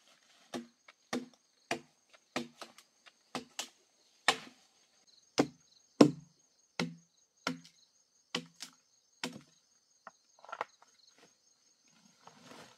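A blade chopping into a felled tree trunk: about fifteen sharp, unevenly spaced strikes, one or two a second, that stop about ten and a half seconds in. Insects drone steadily and high-pitched behind them.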